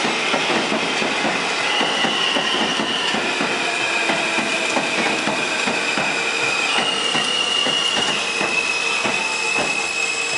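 R160B subway train rolling along the track, its wheels knocking over rail joints, with a high-pitched wheel squeal that holds and shifts to a new pitch several times.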